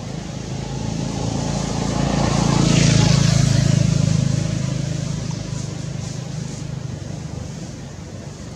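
A motor vehicle driving past: its engine hum and hiss swell to a peak about three seconds in and then fade away.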